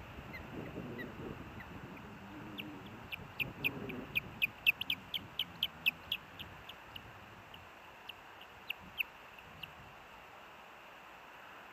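Ospreys calling: a run of short, high whistled chirps that comes fast and loud from about two and a half seconds in, then thins to a few scattered calls. A low rustle lies under the first few seconds.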